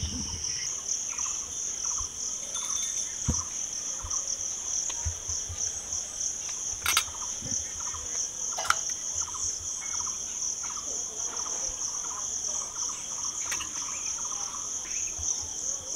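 Insects trilling: a steady high-pitched buzz, with a fainter lower chirp repeating about twice a second, and a couple of soft clicks around the middle.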